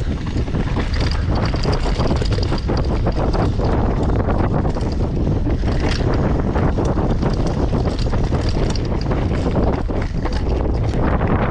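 Wind rushing over the microphone on a fast snow-slope descent, with a constant rough scraping of snow under the rider.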